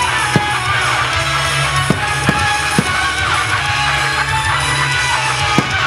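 Loud music with a steady band sound throughout, and about five sharp firework bangs cracking over it at irregular intervals from aerial shells bursting.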